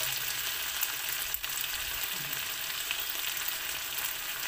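Sweet potato strips and ground pork sizzling as they stir-fry in a hot wok, a steady hiss with a few faint clicks and one sharper tick about a second and a half in.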